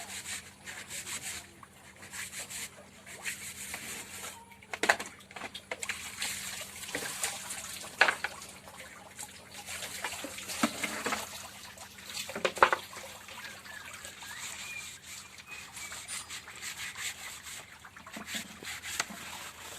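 Water trickling and splashing as it is poured and handled in poultry water pots, with scattered sharp knocks and clatters.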